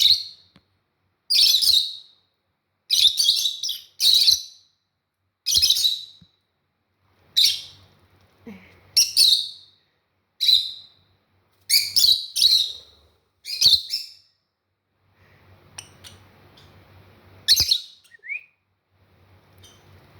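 Pet parrots calling: a string of short, loud, high-pitched calls at irregular intervals, thinning out after about fourteen seconds to a quieter stretch with one more call.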